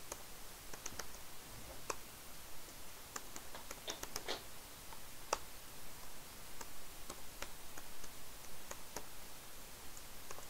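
Computer keyboard being typed on: scattered, irregular key clicks, some in small clusters.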